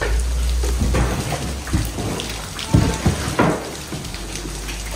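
Rain and dripping water under a steady low rumble, with several knocks and clatters of debris being handled, loudest about three seconds in.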